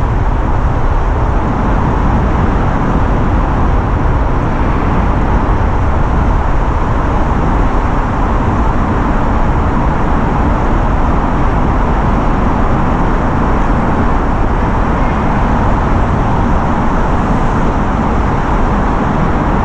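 Steady rushing wind noise on the microphone while riding a bicycle, with a constant low rumble underneath.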